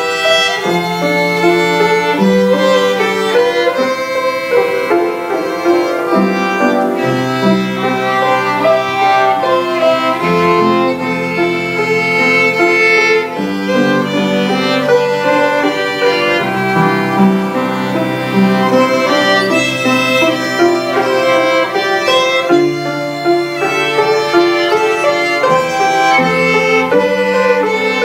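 Two violins playing a slow duet in long bowed notes, with lower sustained accompanying notes beneath them.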